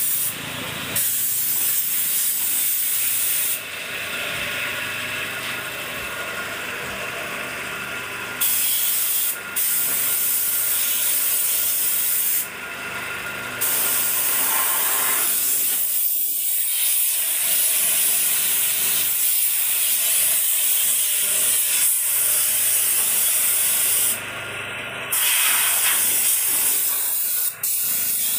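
Hose spray nozzle hissing steadily as it sprays a fine mist of water mixed with diesel and oil over a groundnut opener's sheet-metal body. The hiss thins for a few seconds several times.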